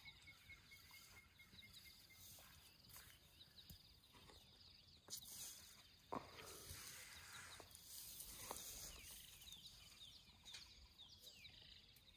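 Near silence, with a faint run of high chirps in the first two seconds and a few soft crunches and rustles of an elephant calf pulling and chewing grass.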